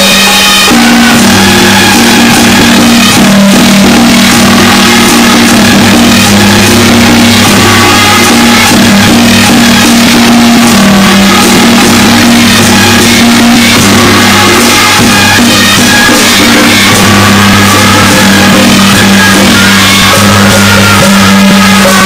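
Loud temple-procession music: drums and percussion beating over long held low tones.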